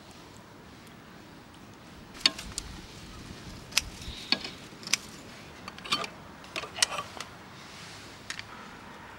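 About a dozen sharp, irregular clicks and knocks, bunched between about two and eight and a half seconds in.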